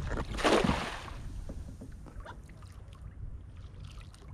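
A five-foot cast net landing on the water, a splash about half a second in, followed by a faint low rumble and a few small ticks.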